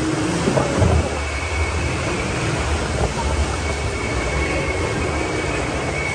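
Rushing, churning water around a round raft boat on a river-rapids ride, under a steady low rumble. A faint high squeal comes and goes over it.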